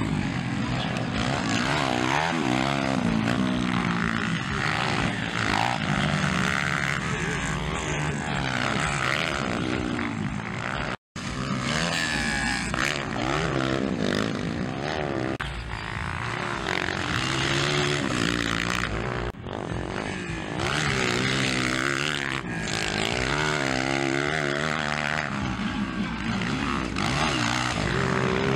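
Dirt bike engines revving up and down through the gears as motocross bikes race round the track, several pitches overlapping and rising and falling. The sound drops out for an instant about eleven seconds in.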